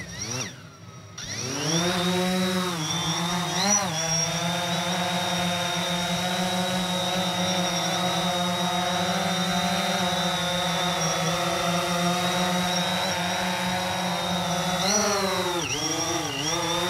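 DJI Phantom 4 Pro quadcopter's four propeller motors spinning up, rising in pitch over the first second or two, then lifting off into a steady buzzing whine of the propellers. The pitch bends briefly as it manoeuvres, about four seconds in and again near the end.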